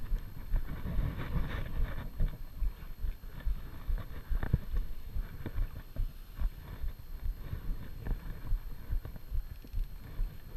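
Wind buffeting an action camera's microphone, making irregular low thumps, with scattered short clicks from handling the rod and reel while a fish is played.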